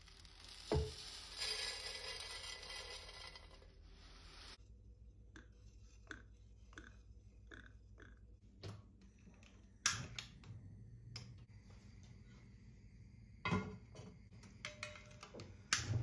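Dry vermicelli poured from a plastic container into a nonstick pan, a dense rattling hiss lasting about three and a half seconds. After it come scattered light taps and a few sharper knocks of utensils against the pan and stovetop.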